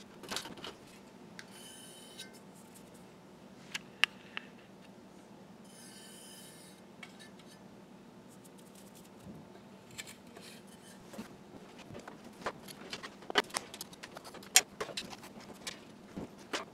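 Hands working among the wiring and metal parts at the back of a vintage gas stove: scattered clicks, knocks and rattles of metal and wire, with two brief scraping rubs in the first seven seconds and busier clicking and rattling in the second half, over a faint steady hum.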